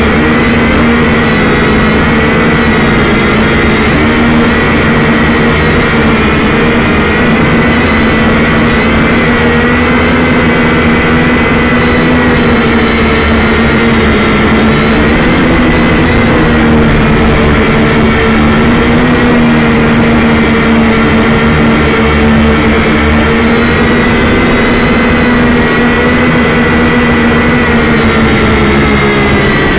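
Syma X5C quadcopter's brushed motors and propellers whining, heard loud through its own onboard camera microphone. The sound is steady, with the pitch wavering slightly as the throttle shifts, and it dips briefly near the end.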